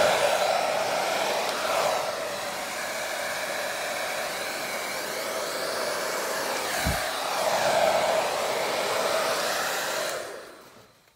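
Hair dryer running steadily, blowing wet acrylic paint across a canvas; it is switched off about ten seconds in and dies away.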